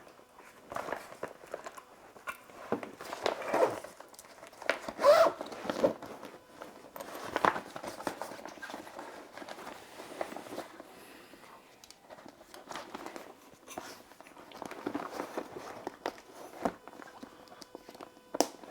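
A padded fabric backpack being handled: irregular rustling, scuffing and light knocks as it is shifted about with water bottles inside.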